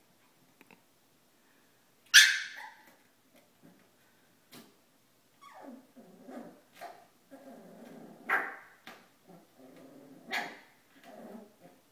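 Shiba Inu screaming and whining: one loud, sharp scream about two seconds in, then a run of whines and yelps with two more loud cries near the end. It is a fearful cry from a dog afraid to come down the stairs, calling for help.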